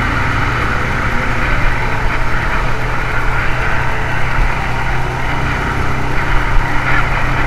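Motorcycle engine running steadily while riding along a road, with wind and road noise over the microphone.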